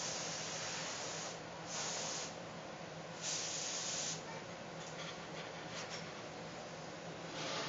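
Short bursts of hiss, each under a second and several in a row, over the steady low hum of a glassblowing studio's furnaces and burners.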